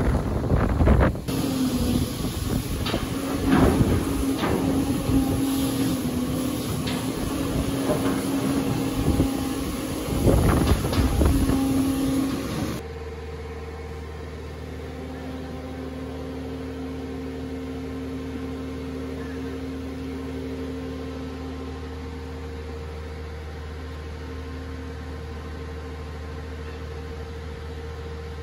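Caterpillar hydraulic excavator digging a trench: its engine runs under a tone that comes and goes, with repeated knocks and scrapes of the bucket. About halfway through, this gives way to a quieter steady low machine hum.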